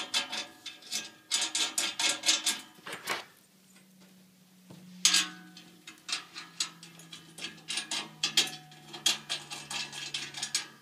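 Metal clicking and clinking as shoulder bolts are spun a few turns by hand into the threaded holes of a metal mounting bracket, and the bracket is handled and turned on a table. The clicks come in quick clusters, with a lull a little after three seconds in, and a faint low hum sets in partway through.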